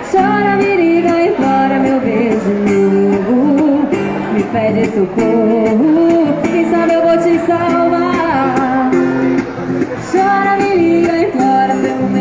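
Live sertanejo song: an acoustic guitar strummed in a steady rhythm while a woman sings the melody through a microphone.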